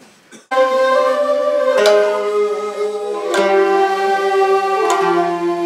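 Koto and shamisen playing slow Japanese sankyoku music. A plucked entry comes about half a second in, then single plucked strokes follow about every second and a half, with the notes ringing on between them.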